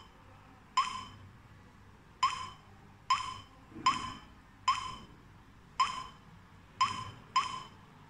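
Touchscreen keypad of a Daytech TA03 alarm control panel beeping once for each key press as a phone number is entered: eight short beeps at uneven spacing.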